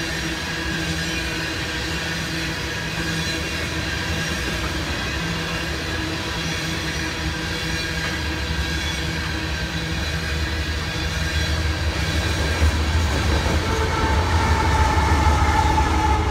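Oil train tank cars rolling past on steel rails, a steady rumble of wheels on track with thin steady squealing tones from the wheels. In the last few seconds a low rumble grows louder.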